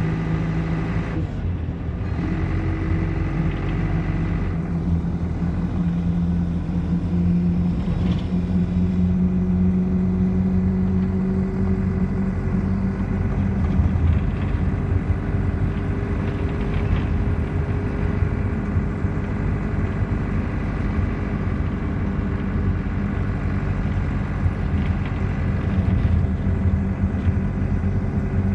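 An engine running steadily: a low hum with a few held tones that shift slightly in pitch, over a rumble.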